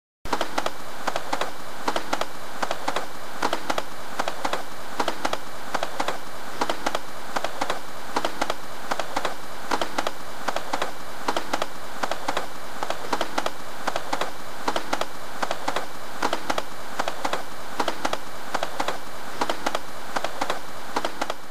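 A fast, continuous clatter of many small clicks at an even level, which fades out near the end.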